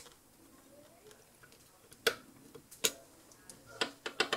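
A few sharp, irregular metal clicks as a hex key tightens the retaining screw of a small lead screw gear on the end of a mini lathe's lead screw, and the gear is handled on the shaft. Most of the clicks fall in the second half.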